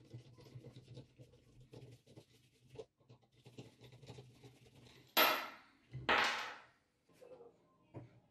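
Small metal clicks and scraping as a hex bit in a screwdriver turns a screw on the cast-iron grinder's tool rest, then two short loud hissing sprays about five and six seconds in.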